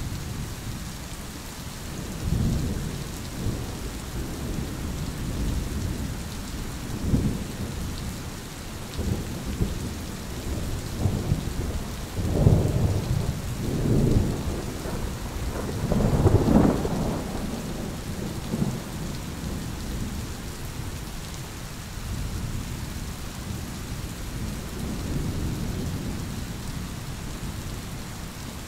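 Steady rain with rolling thunder: a series of low rumbles that build to the loudest peals about twelve to seventeen seconds in, then die back under the rain.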